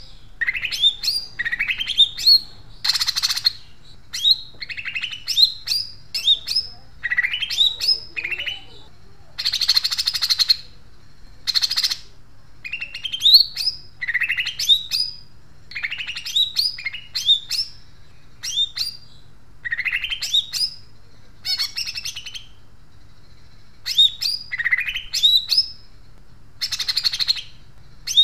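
Caged cucak ijo (green leafbird) singing loudly: phrase after phrase of quick rising whistled notes, broken every few seconds by short harsh, rasping chatters in the tree-sparrow ('gereja') style.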